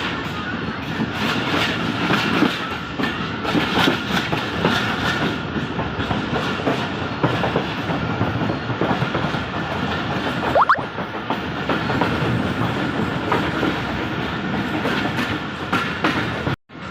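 Passenger train running at speed, its wheels clattering over the rail joints above a steady rumble.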